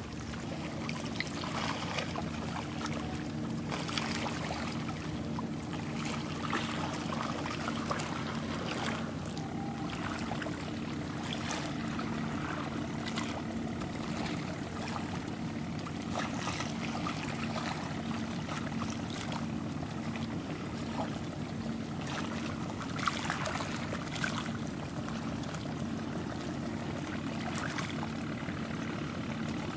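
A boat engine running with a steady low drone that pulses slightly, over irregular splashing and lapping of river water.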